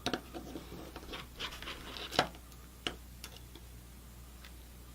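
Small screwdriver clicking and scraping as it backs a tiny screw out of a mini PC's board, a handful of light ticks with a sharper click about two seconds in.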